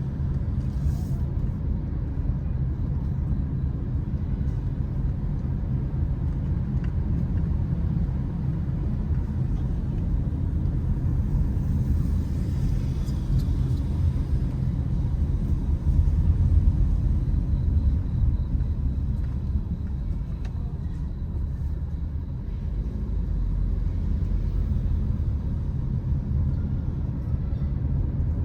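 Steady low rumble of a car moving through city streets: road and engine noise, swelling briefly about halfway through.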